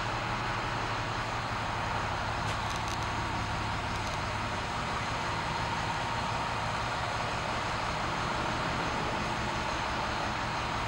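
Steady hum of the International 4300 ambulance's diesel engine idling, heard inside the closed rear patient compartment, with an even hiss over it.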